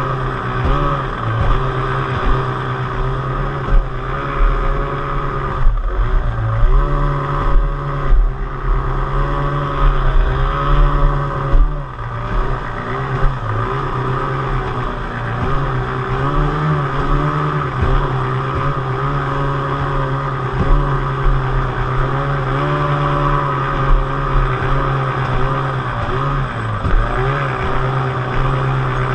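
Yamato racing outboard motor on a small hydroplane running at speed, mostly steady, its pitch dipping briefly several times and climbing back, with wind and water rush.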